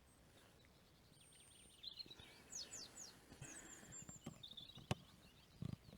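Faint songbird calls: a thin whistle, then several quick downward-slurred chirps and twittering, with a sharp click near the end and a few soft low thumps just after.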